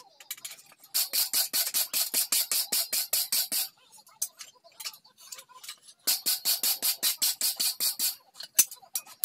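Wooden-handled wire brush scrubbed quickly back and forth over a steel plate, about six strokes a second, in two bouts with a short pause between them.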